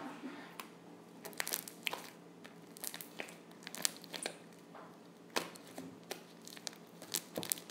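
Sticky fluffy slime being squeezed and stretched by hand, giving irregular sticky clicks and small pops as it pulls apart and presses together.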